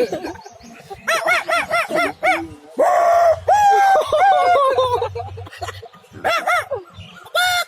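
A man imitating bird calls with his voice: a run of quick rising-and-falling calls, then a longer held call and a few falling glides, then short bursts of calls near the end.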